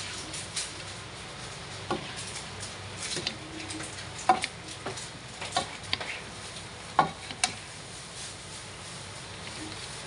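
Vegetables and meat stir-frying in a pan: a steady sizzle under the scrape and clack of a spatula against the pan, with sharper knocks about four seconds in and twice around seven seconds.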